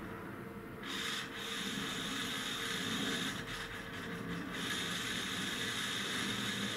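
The servo motor and gear train of an aircraft master compass indicator whirring as they drive the compass card back and forth. The card keeps hunting because the rate-generator damping is switched off. The high whir drops out briefly near the start and fades for a moment around the middle.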